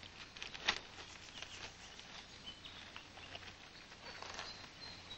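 Faint forest sounds: scattered rustling and light crackling of leaves and twigs, with a thin, high, steady whistle from about halfway through.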